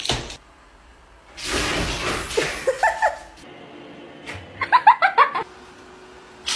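A person laughing: a few short rising vocal sounds over a stretch of hiss, then a quick run of short laughing bursts about five seconds in.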